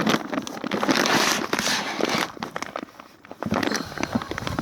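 Packaging being handled and unpacked from a box of pet food, crinkling and crackling in two bouts with a short lull between.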